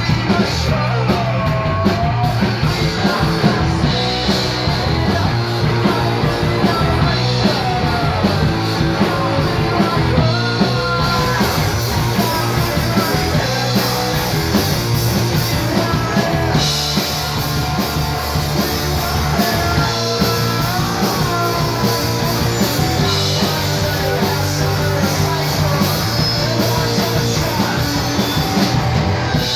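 A rock band playing live at full volume, with a singer's voice sliding in pitch over a dense, steady band sound.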